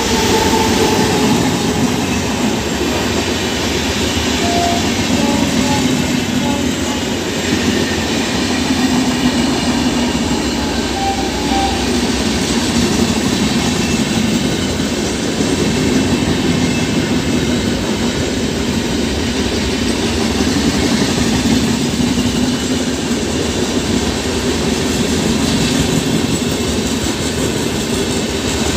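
Express train running through a station without stopping: an electric locomotive passes, then its coaches go by in a steady, loud rumble of wheels on the rails.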